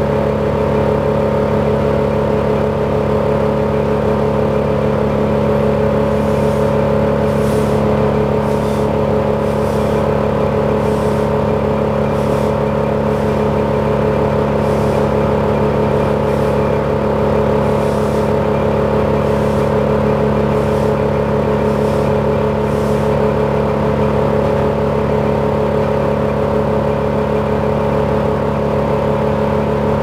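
Truck-mounted crane's engine running steadily at a raised speed while the crane lifts a large pine tree, with a dozen or so faint, short high hisses in the middle.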